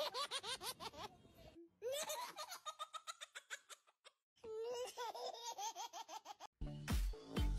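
High-pitched, rapid giggling laughter in three separate runs with short breaks between them. Music with a steady beat starts near the end.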